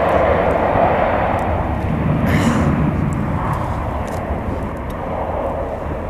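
Jet engine noise from a Boeing 717's rear-mounted Rolls-Royce BR715 turbofans running up for takeoff: a steady rushing roar that eases slightly toward the end.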